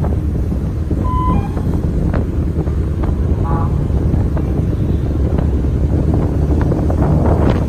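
Wind buffeting the microphone over the steady low rumble of the moving vehicle the camera rides on. A short beep sounds about a second in, and a brief tone with several pitches comes midway.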